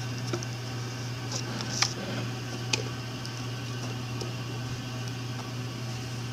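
A steady low background hum, with a few light clicks as small plastic Beados beads are set by hand into a plastic bead tray, three of them in the first three seconds.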